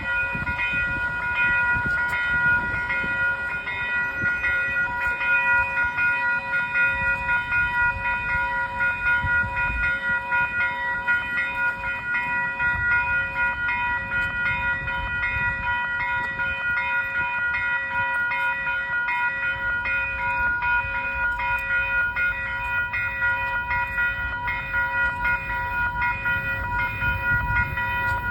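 Metrolink commuter train running, a low rumble under a steady high ringing tone that carries on throughout.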